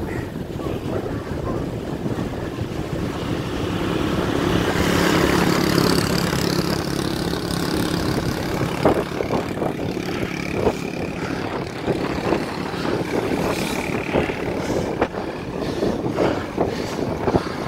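Wind rushing over a phone's microphone as a road cyclist rides along holding it. A low motor hum swells and fades over the first half, and short irregular knocks from the phone being handled follow in the second half.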